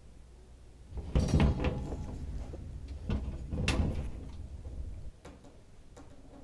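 Knocks, clicks and rustling of equipment being handled on a table, over a low rumble. The sounds are loudest a second or two in and stop abruptly about five seconds in.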